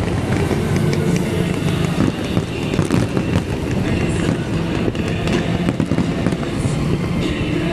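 Fireworks display going off in quick succession, a dense run of bangs and crackles over a steady low background noise.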